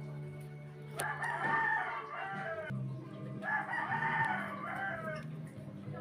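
Rooster crowing twice, each crow about a second and a half long, over faint background music.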